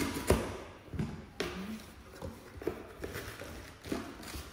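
Cardboard delivery box being cut open with scissors and its flaps pulled back: a run of irregular taps, scrapes and light thuds.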